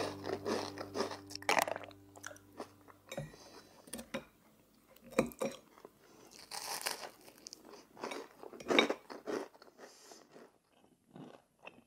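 Knife and fork cutting through a crisp-crusted egg mayonnaise toast, crackling in a run of separate crunches. Background music ends about one and a half seconds in.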